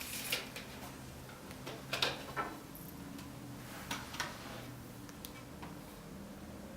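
A few light clicks and knocks of handling, coming in pairs about two seconds apart, as a billiard cue is moved and set down for measuring.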